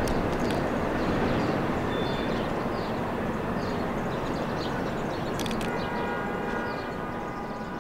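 Passenger train rolling away into a tunnel, its rumble slowly fading. About three-quarters of the way through, a steady high ringing of several pitches sets in.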